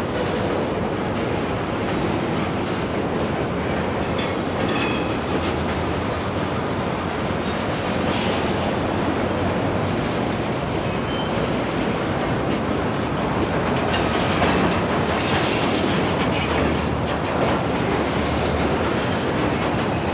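Freight train moving through a rail yard: a steady rumble of steel wheels rolling on the rails.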